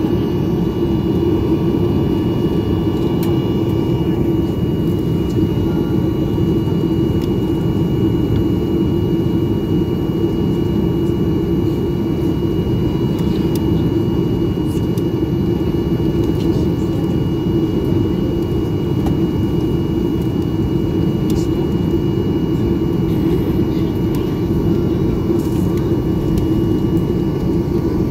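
Cabin noise inside a taxiing Boeing 737-800: the CFM56 jet engines running at low taxi thrust, a steady hum and rumble with a thin steady high whine over it.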